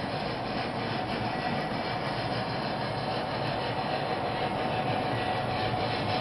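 O scale model of a Pennsylvania Railroad S1 steam locomotive running past on three-rail track: a steady rolling rumble of its wheels and motor, growing slightly louder as it comes closer.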